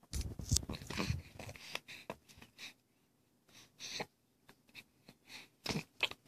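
Hiccups: short, sharp catches of breath a couple of seconds apart, after a stretch of rustling and handling noise in the first second or two.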